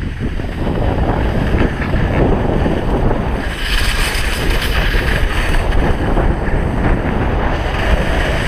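Wind buffeting an action camera's microphone during a downhill ski run, mixed with the hiss of skis sliding over snow.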